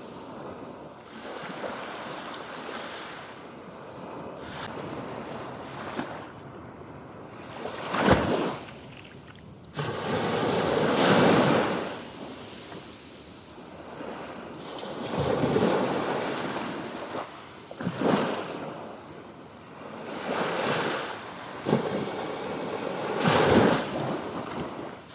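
Sea waves breaking and washing up the beach, each one swelling and fading in a hiss, one every few seconds.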